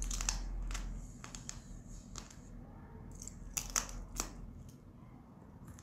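Close-up eating sounds: a series of sharp wet smacks and crunches as a person bites and sucks at a piece of spicy sauced food held in chopsticks, with a quick cluster of three louder ones near the end.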